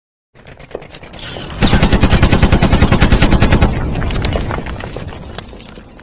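Machine-gun fire sound effect: a burst of rapid shots, about ten a second, lasting roughly two seconds, followed by a fading rumble with a few scattered cracks.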